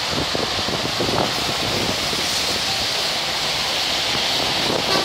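Steady rushing of strong wind buffeting the microphone, mixed with road traffic noise, with gusty buffeting over the first couple of seconds.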